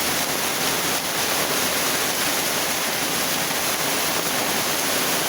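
Heavy rain with hail pelting down, a dense, steady hiss of countless impacts.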